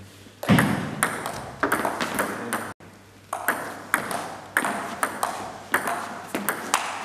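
Table tennis rally: the celluloid ball ticking sharply off the table and the rubber-faced paddles, about two hits a second, each with a short echo in a sports hall. The rally breaks off briefly about three seconds in, then the ticking resumes.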